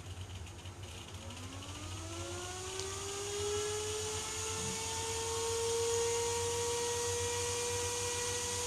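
Cooling fan of a crypto mining machine spinning up on test: a whine rising in pitch over about three seconds, then holding steady at full speed. The fan socket drives it normally, a sign that the socket works and the fault lies in the old fans.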